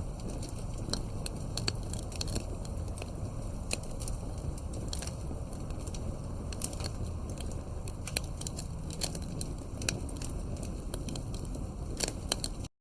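Campfire wood crackling, with many sharp irregular pops and snaps over a steady low rumble of the fire.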